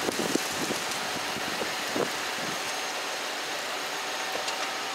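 Steady noise of car engines idling in a queue at a railway level crossing as the barrier booms rise, with a few short low knocks in the first two seconds.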